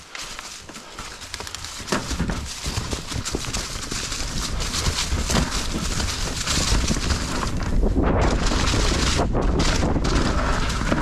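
Mountain bike ridden fast down a rough trail: the tyres clatter and knock over roots and rocks, and the chain and frame rattle. The noise grows louder and is heaviest in the second half, over a steady low rumble.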